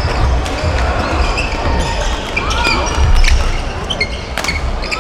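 Badminton rally: sharp racket-on-shuttlecock hits, sneakers squeaking on the court floor and thudding footfalls, with faint background voices.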